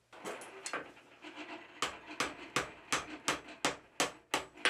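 Blacksmith's hand hammer striking red-hot 3/16 by 3/4 inch steel flat bar on an anvil, forming the small pivot loop at the top of a divider arm. A few lighter, uneven knocks come first, then from about two seconds in, steady blows at roughly three a second.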